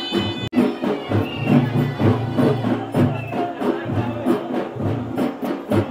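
Traditional folk band music. A reed pipe melody breaks off abruptly about half a second in. Then drums beat a fast, steady rhythm of about four strokes a second.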